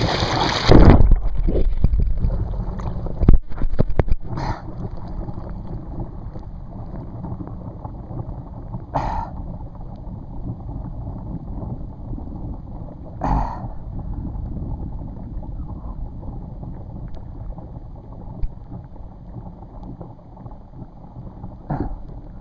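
Lake water splashing and sloshing against a jacket-mounted camera worn by a water-skier floating in the water. The splashing is loud in the first few seconds, then turns into a few single slaps spread through the rest. Under it runs a steady low rumble, the tow boat's engine idling in neutral.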